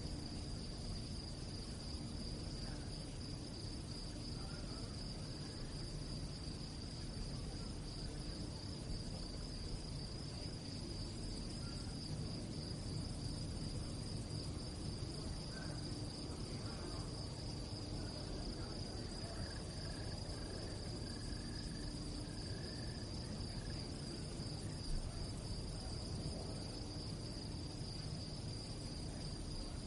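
Crickets singing at night, a steady high-pitched chorus that does not let up, over a low background rumble.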